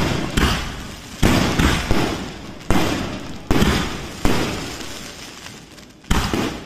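Firework explosions in quick succession: about nine sharp bangs at uneven intervals, each dying away over a fraction of a second to a second.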